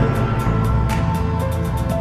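Background music: held tones over a low bass line with a light, steady ticking beat.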